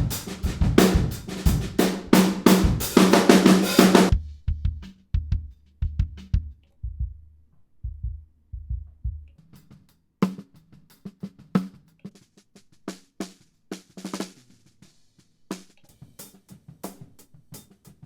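Close-miked drum kit recording played back: the full kit groove of kick, snare and hi-hat for about four seconds, then the kick drum thumping on its own, then snare hits heard alone from about ten seconds in.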